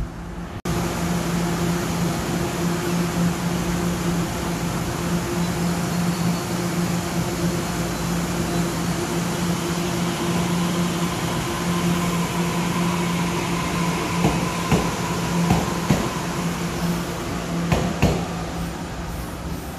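Steady hum from a Taiwan Railways Taroko Express tilting electric train standing at the platform, its air-conditioning and auxiliary equipment running with two low droning tones. A few sharp knocks sound in the last few seconds.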